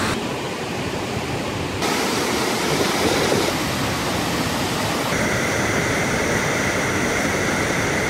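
Waterfall: heavy water falling into and churning a plunge pool, a steady rushing noise. Its tone shifts abruptly twice, duller for the first couple of seconds and brighter from about five seconds in.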